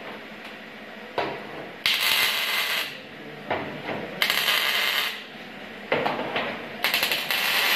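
MIG (CO2 gas-shielded wire) welding torch tack-welding steel hinges onto a sheet-steel almirah: short bursts of crackling, sputtering arc, each a second or less, with three loud ones.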